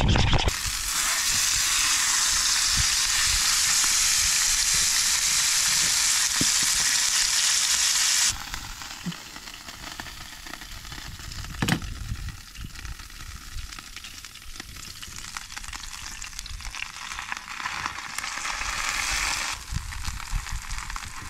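Food sizzling in a frying pan on a portable gas stove. The sizzle is loud for the first eight seconds, then drops abruptly to a softer sizzle, with a single sharp clack about twelve seconds in. It swells again near the end as bread fries in the pan.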